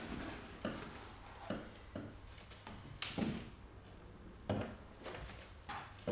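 Soft rubbing and scraping strokes of hands working paint across a large canvas, a series of short swishes about every half second to second, the strongest about three seconds in.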